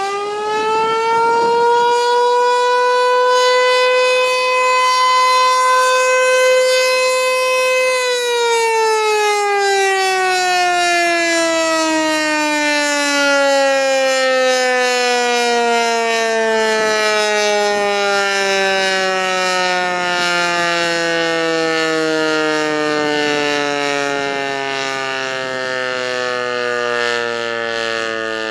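American Signal Tempest T-128 electromechanical outdoor warning siren (8-port, three-phase) sounding a short alert, loud. It reaches full pitch right at the start and holds one steady tone for about eight seconds, then winds down, its pitch falling slowly and steadily through the rest.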